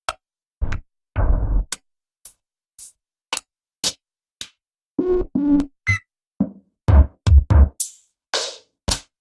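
Electronic drum-kit samples from a dark ambient drum kit: short, dry drum-machine hits, deep kicks, clicks and snappy percussion, about two a second with silence between, a few with a brief pitched ring.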